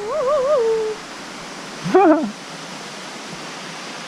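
Steady rush of a mountain stream or waterfall, with a short wavering vocal call at the start and a brief rising-then-falling call about two seconds in.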